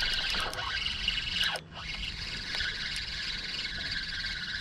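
Shimano Sahara 2500 spinning reel being cranked, its gears whirring steadily as line is wound in on a small hooked white perch. The whir dips briefly about one and a half seconds in.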